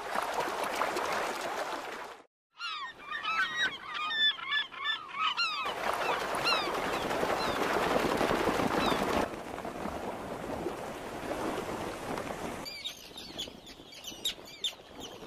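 A flock of eider ducks splashing and beating across the water as they take off, with bouts of their calls between two stretches of splashing. Near the end come the sharp, high calls of Arctic terns.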